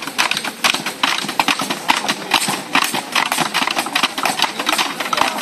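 A rapid, irregular clatter of many sharp knocks and clicks, without pause.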